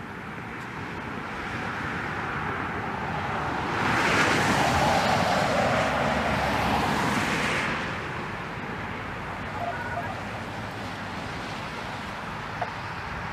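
A vehicle passing on the road: a rushing tyre noise that builds, is loudest for a few seconds around the middle, then fades back into steady traffic background.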